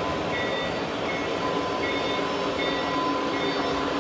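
Lionel O-gauge model trains running on three-rail track: a steady rumble of wheels and motors, with short thin high tones coming and going over it.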